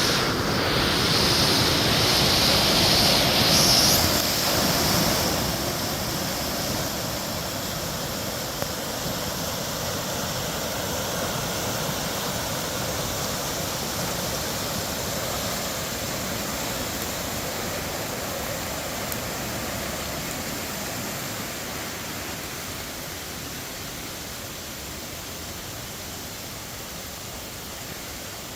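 Rushing water of a creek running high, a steady noise that is louder and brighter for the first few seconds, then settles and eases slightly.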